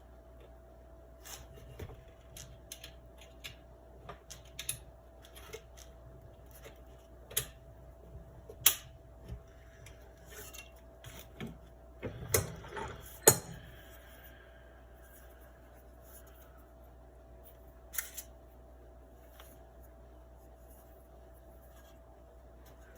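Scattered light clicks and knocks of a Daisy 105 Buck BB gun's parts being handled as its mainspring is pushed in with a PVC spring pusher during reassembly, the loudest a few sharp knocks about nine and thirteen seconds in. A faint steady hum runs underneath.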